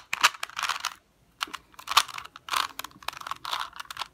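Rubik's cube faces being twisted: a run of quick plastic clicks and scrapes, with a short pause about a second in.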